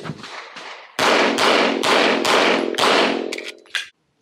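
A 9mm pistol fired in a rapid string: about six sharp shots roughly two to three a second, each with a short ringing echo, starting about a second in after the fading echo of earlier shots. A few small ticks follow just after, then the sound cuts off abruptly.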